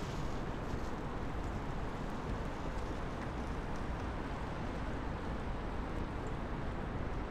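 Steady outdoor background rumble of distant city traffic, with no single sound standing out.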